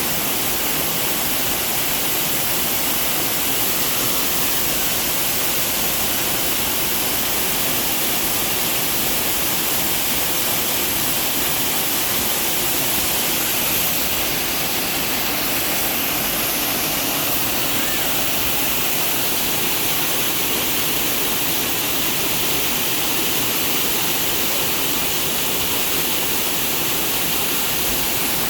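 Waterfall: water falling and rushing in a steady, even roar that does not change.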